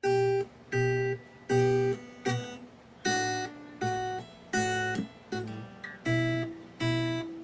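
Acoustic guitar strummed in a steady rhythm, about one chord stroke every three-quarters of a second, with the chord changing twice.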